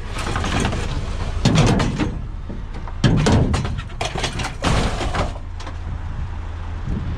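A vehicle running with a steady low hum, over which come several bunches of clattering and knocking.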